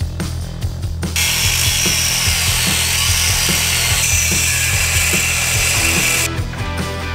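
Angle grinder grinding into the steel frame of a pickup truck: a loud, harsh hiss that starts about a second in and cuts off about six seconds in. Background music with a steady beat plays underneath.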